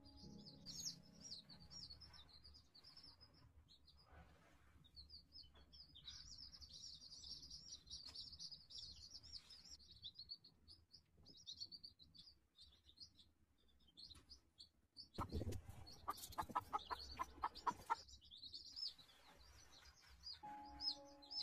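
Domestic chicks peeping in a continuous stream of high, quick chirps. About three-quarters of the way through there is a louder burst of rapid repeated sounds.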